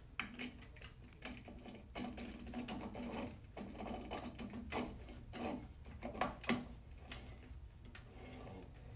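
Irregular metallic clicking and clinking as a planetary gear set is turned and seated by hand inside a CVT transmission case, the gear teeth and bearings catching as they line up. The loudest clicks come about six seconds in.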